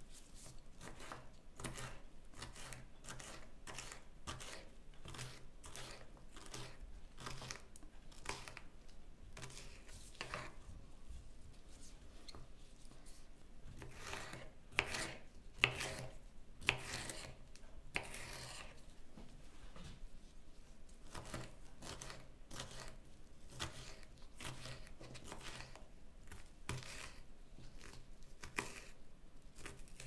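Kitchen knife chopping a green capsicum on a wooden cutting board: a steady run of short cuts, about two a second, with a few louder strokes about halfway through.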